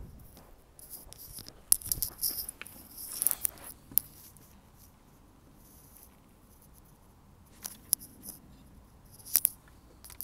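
Footsteps crunching in thin snow for a couple of seconds, then mostly quiet with a few sharp clicks near the end.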